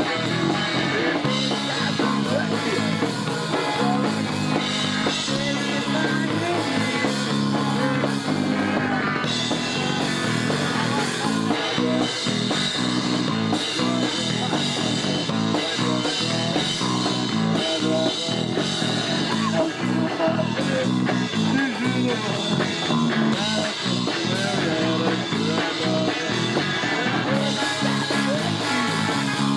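A live rock band playing loud and continuous, with guitar and drum kit, as heard through a camcorder microphone.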